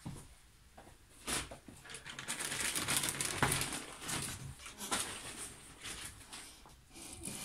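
Irregular rustling and handling noises with a few light clicks, loudest in the middle: hands handling cloth and small items, such as getting the buttons ready to fit.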